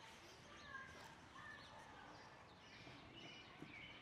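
Near silence with faint birds chirping and whistling in the background.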